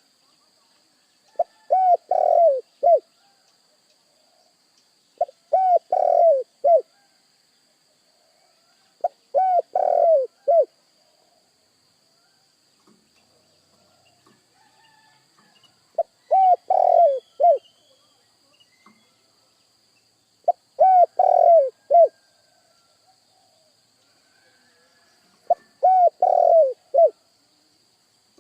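Spotted dove (tekukur) cooing: six phrases of several short coos each, spaced a few seconds apart.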